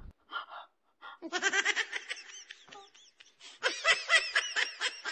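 Laughter in short rhythmic pulses, starting about a second in and getting louder near the end.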